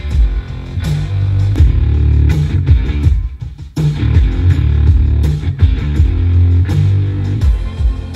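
Rock music with electric guitar and heavy bass playing through a 2019 Toyota Tacoma's standard, non-JBL car-audio speakers, heard in the closed cab during a sound comparison between head units. It drops out briefly about three seconds in, then resumes.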